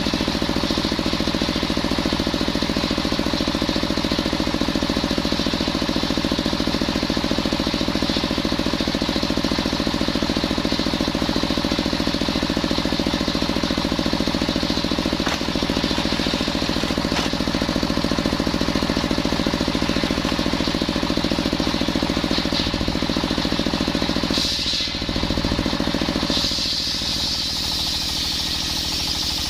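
Engine-driven circular saw (serkel) sawing coconut wood, the engine running with a fast steady pulse under the blade. The sound dips briefly about 25 seconds in, then carries on with less low end and more high noise.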